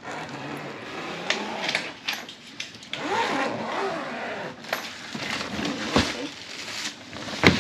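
A new hard-shell suitcase being handled: scattered sharp clicks and knocks from its shell and combination lock, over a rustling, crinkling noise.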